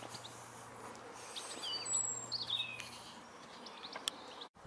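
Songbirds chirping, a cluster of short high calls busiest about two seconds in, over a steady background hiss with a few faint clicks. The sound drops out briefly near the end.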